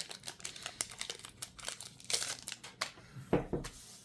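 Plastic wrapper of a Magic: The Gathering booster pack crinkling and tearing as it is opened by hand. Two dull thumps come a little after three seconds in.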